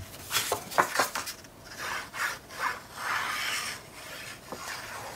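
Patterned scrapbook paper being handled, with a few sharp crinkling clicks about half a second to a second in, then a longer rasping rub as the nozzle of a liquid glue bottle is drawn across the back of the sheet.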